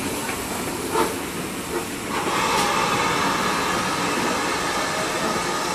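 Great Western steam locomotive moving slowly through a station, with a single knock about a second in. From about two seconds in, a loud, steady hiss of escaping steam sets in.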